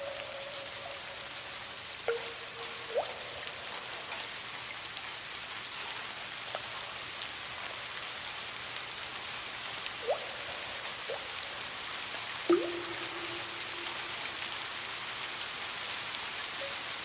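Soft steady rain hiss with water drops plinking at irregular intervals, about eight in all, several ringing on briefly with a short pitched tone.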